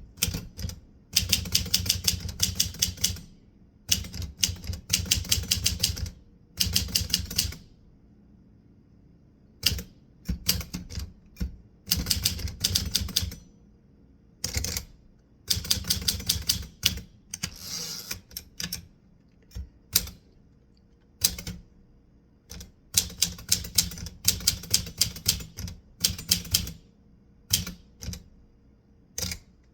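Typewriter being typed on in bursts of rapid keystrokes, each run of clicks lasting a second or few and broken by short pauses.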